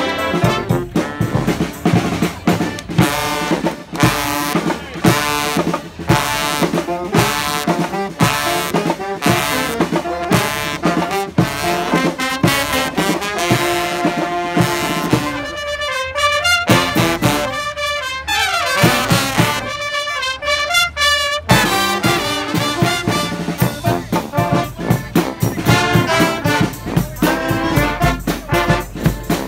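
Street brass band with drums playing a fast tune to a steady beat. About halfway through, the drums drop out for several seconds of horns alone with sliding notes, then the full band comes back in.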